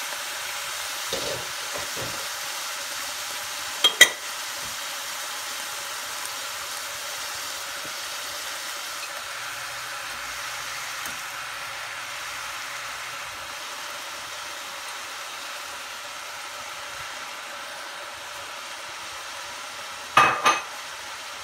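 Chopped bok choy and collard greens sizzling in olive oil in a pan on low heat, a steady hiss. A sharp knock about four seconds in, and two more knocks near the end.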